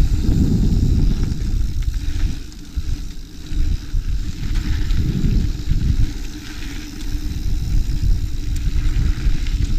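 Mountain bike rolling over dirt trail, with wind buffeting the action camera's microphone and the tyres rumbling; the rumble eases briefly twice.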